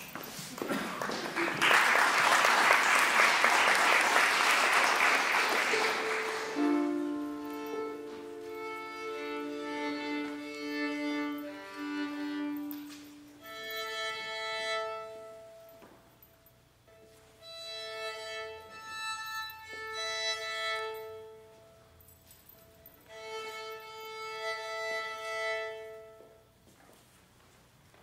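Audience applauding for the first six seconds or so, then a solo violin playing slow, held notes in a few short phrases with pauses between them.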